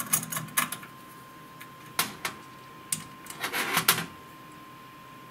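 Small metal clicks and knocks of a screwdriver and screws working on the metal laser-head bracket: a few at the start, single knocks about two and three seconds in, and a quick cluster near four seconds. A faint steady high whine runs underneath.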